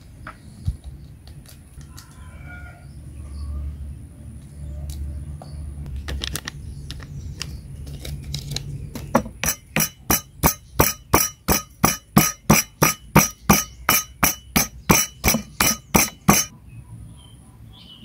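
Stone pestle working spices in a stone mortar: a few scattered knocks at first, then from about nine seconds in a steady run of sharp stone-on-stone strikes, about three a second, which stops a little before the end.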